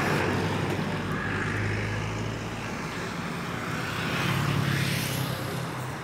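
A honeybee sick with bee paralysis virus buzzing its wings in a short, failed attempt to fly. It makes a low, steady drone that rises in pitch about halfway through.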